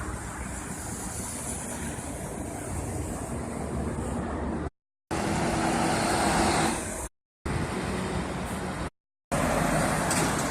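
Highway traffic: steady tyre and engine noise, with a louder truck passing about five seconds in, carrying a low engine hum, and another loud pass near the end. The sound drops out completely three times, each for a fraction of a second.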